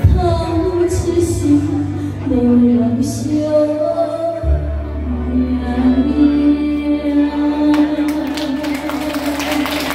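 A woman singing a Taiwanese Hokkien ballad through a handheld microphone over instrumental accompaniment, holding long notes.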